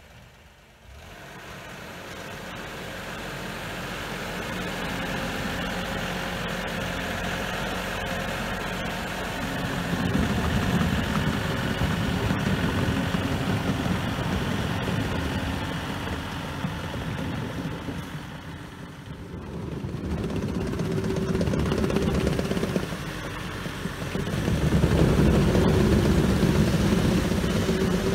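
Truxor T50 amphibious reed cutter's engine running steadily, louder and heavier from about ten seconds in as the machine is driven under load.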